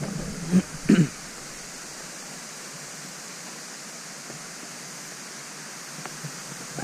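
Steady rushing of falling water from a hillside waterfall or stream. About a second in there are a couple of brief voice sounds.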